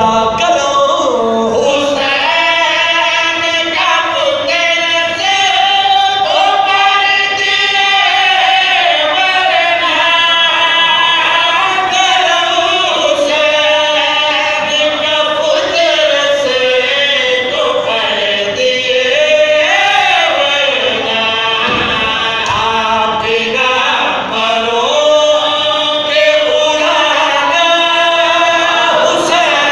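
Male voices chanting a Shia devotional qasida in long, wavering melodic lines, unaccompanied by instruments, sung into a microphone.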